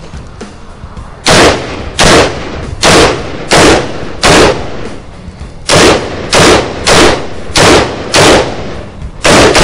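Silver Shadow Gilboa rifle firing single shots in quick succession, about one and a half a second: five shots, a short pause, five more, and one more near the end. The rifle has just been dragged through desert sand as a stress test and keeps cycling and ejecting its cases.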